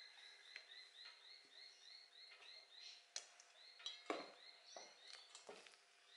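Wooden spatula knocking against a stainless steel mixing bowl while folding meringue into pancake batter: a few sharp knocks in the second half, the loudest about four seconds in. Under it, a faint, steady chirping at about three chirps a second.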